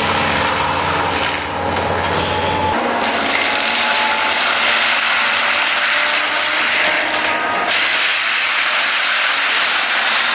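Heavy forestry machinery running with a steady, dense grinding noise; its low rumble drops away about three seconds in.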